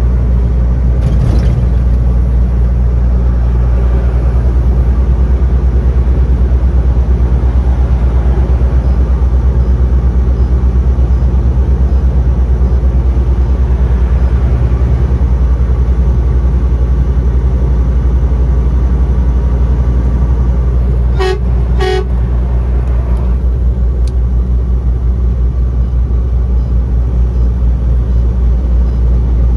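Truck engine and road noise as a steady low rumble, broken about two-thirds of the way through by two short blasts of the truck's horn in quick succession.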